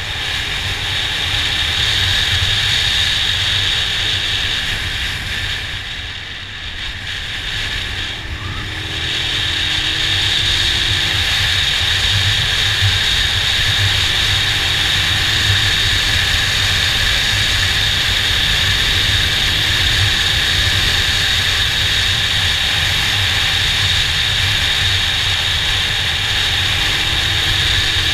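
Motorcycle on the move: a steady rush of wind on the mic with the engine's low drone underneath. The sound eases off for a few seconds about six seconds in, then picks back up.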